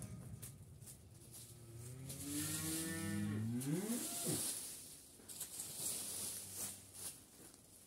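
A cow mooing once, a long low call starting about two seconds in that bends up in pitch and breaks off. A rake scratches through dry fallen leaves around it.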